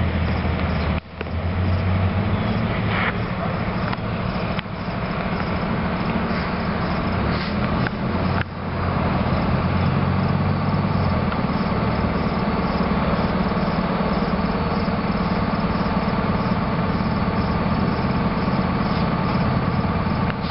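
Departing diesel commuter train: the steady drone of an EMD F40PH locomotive's engine with the rumble of its bilevel cars on the rails. The sound dips briefly twice in the first half.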